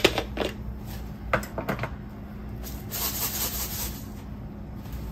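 A box of Morton coarse kosher salt being picked up and handled. There are a few light knocks and taps in the first two seconds, then a rubbing, scraping rustle about three seconds in.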